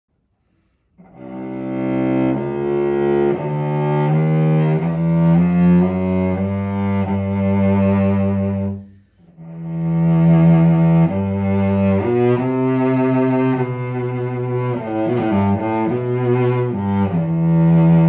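A c.1910 Eugene Chartreux cello from Lyon, strung with Larsen A and D and Spirocore G and C strings, played with a bow. It plays a slow line of sustained low notes starting about a second in, breaks off briefly about nine seconds in, then resumes.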